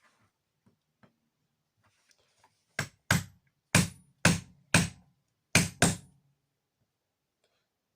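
Hammer blows, seven sharp strikes in quick, uneven succession starting about three seconds in, some in close pairs.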